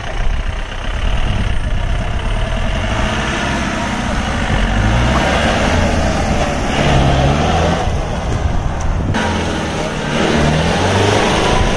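Mahindra 4x4 jeep's engine revving up and down under load as it drives off-road, over a steady rushing noise. There is a sudden break about nine seconds in.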